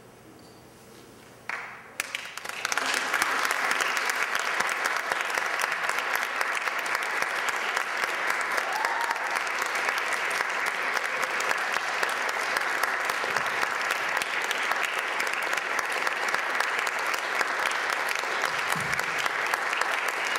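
Theatre audience applauding. It starts about a second and a half in with a few first claps, swells within a second into dense full applause, and stays steady.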